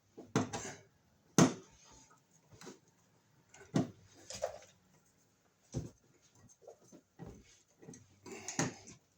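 Irregular sharp knocks, clicks and rattles of hand work on an electrical outlet box: a receptacle and its mounting screws being handled and pushed into place.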